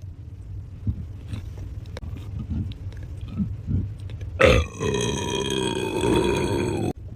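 A long, loud human belch starting a little past halfway and lasting about two and a half seconds before it cuts off suddenly. Before it there is only a low rumble with a few faint small sounds.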